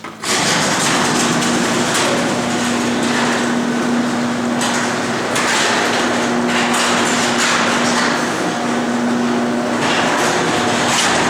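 Garage door opener running, the door travelling on its track with a steady motor hum and a loud rattle; it starts suddenly and keeps going without a break.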